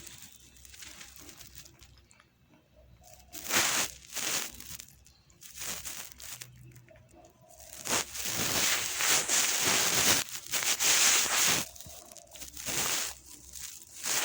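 Irregular bursts of rustling, crinkling noise: two short bursts, then a long stretch of about three and a half seconds in the second half, and one more short burst near the end.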